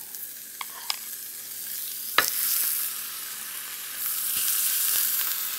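Raw beef shank slices sizzling as they are laid into hot oil in an enamelled cast-iron pan. The hiss swells about two seconds in and again about four seconds in as each shank goes down. A few sharp clicks of the metal tongs come through, the loudest about two seconds in.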